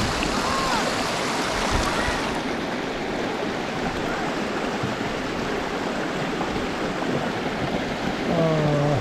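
River water rushing over rocks below a waterfall: a steady, loud, even noise, whose hiss thins a little about two and a half seconds in. A voice is heard briefly near the end.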